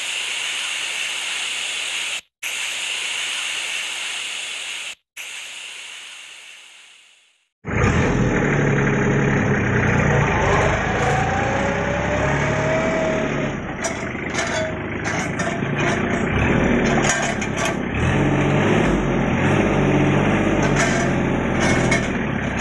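A hissing intro sound effect that cuts out twice briefly and fades away. About eight seconds in, it gives way to the steady running of a Kubota L3200 tractor's three-cylinder diesel engine, with a short rising whine and frequent clanks and knocks from the crane grabber's working parts.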